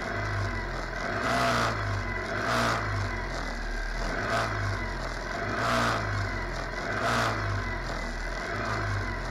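602 cc racing buggy engines idling, with about five short throttle blips that swell and fall back while the cars stand still.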